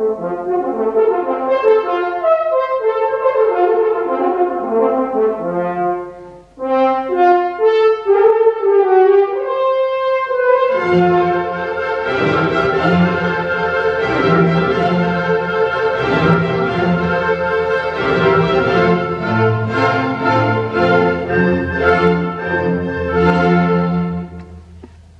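Chamber orchestra playing classical music. A lighter passage without the low strings gives way about eleven seconds in to the full ensemble, with cellos and double bass, which plays on to a closing chord that fades near the end.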